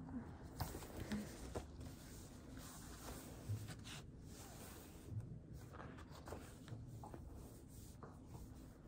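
Faint rustling and soft clicks of a large hardcover picture book being handled and its paper pages turned, in short scattered bursts.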